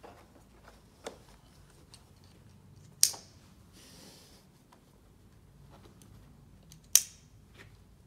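Stretcher strap buckles and webbing being pulled tight: two sharp snaps about four seconds apart, a lighter click before them, and a short rasp of webbing just after the first snap.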